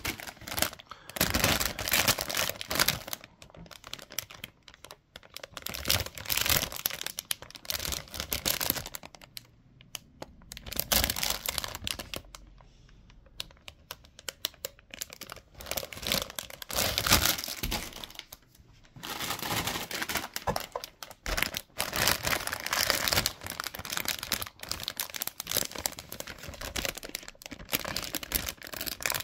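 Clear plastic bags around Gunpla model kit runners crinkling as the bagged runners are lifted out and handled, in irregular bursts with a quieter stretch about halfway through.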